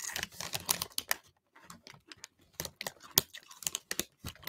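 Close mouth sounds of a man chewing buffalo chicken cheese dip: wet clicks and lip smacks, densest in the first second, then scattered.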